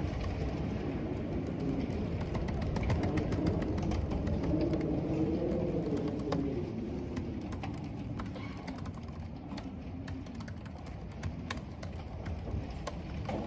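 Computer keyboard typing, a steady patter of key clicks, over the low rumble of wind. The wind rises to a wavering howl in the first half and eases off after the middle.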